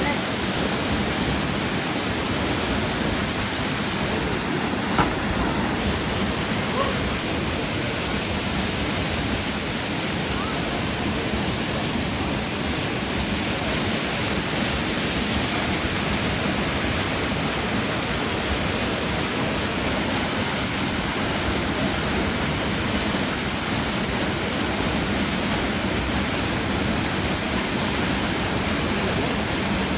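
Waterfall: a steady, even rush of falling water, with one brief sharp knock or splash about five seconds in.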